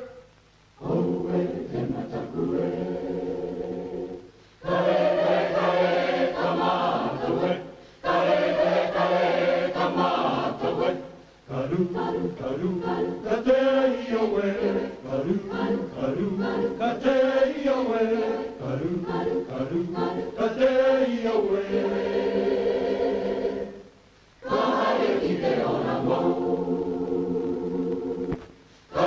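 Maori choir singing in harmony, in phrases broken by short pauses, with held chords at the start and end and moving lines in the middle.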